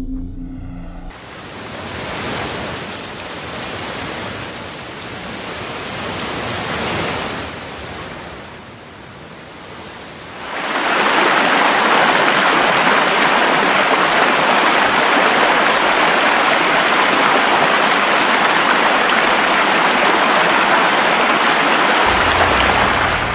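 Heavy rain hissing, swelling and easing. About ten seconds in it gives way to a loud, steady rush of water pouring through open dam spillway gates. A low rumble joins near the end.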